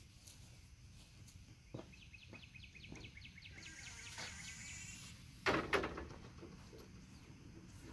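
Quiet outdoor background with a short trill of quick high chirps in the middle, and about five and a half seconds in a single loud metallic clatter as the metal prop pole is picked up and handled.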